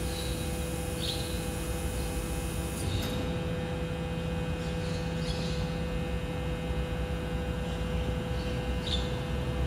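BYD electric garbage truck standing and running, a steady electric hum and whine over a low rumble. A high hiss cuts off about three seconds in, and there are a few short high chirps.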